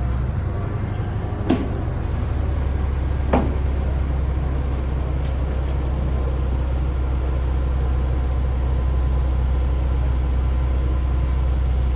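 A large engine idling with a steady low rumble, with two short sharp sounds about one and a half and three and a half seconds in.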